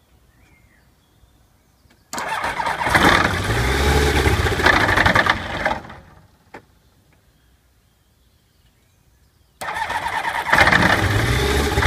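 Electric starter cranking a Rotax 914 turbocharged four-cylinder boxer aircraft engine in two tries of about three and a half seconds each, with a rhythmic beat as it turns over. The engine does not catch because the choke has not been pulled out fully.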